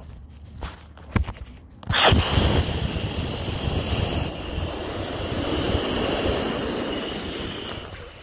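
Inflatable sleeping pad deflating: air rushes out of the opened valve with a sudden hiss about two seconds in, then slowly fades.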